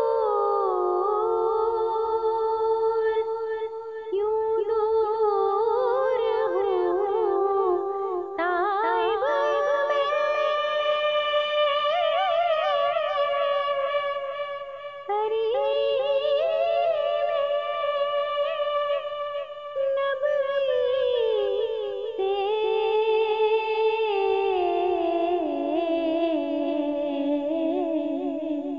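A woman singing an Urdu naat (devotional song in praise of the Prophet) in long melodic phrases, with wavering held notes and short breaks between phrases.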